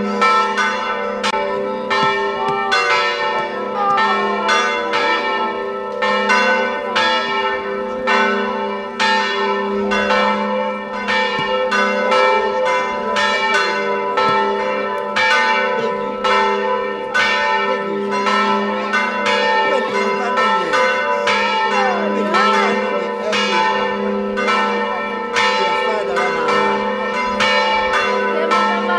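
Church bells ringing in quick repeated strikes, about two a second, their ringing tones overlapping into a continuous hum.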